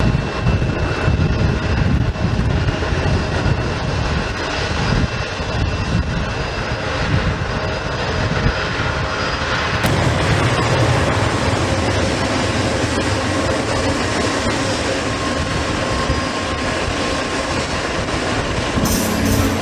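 Jet airliner's turbofan engines running, a steady rush with a thin whine over it, as the plane rolls along the runway. Music with a tambourine comes in right at the end.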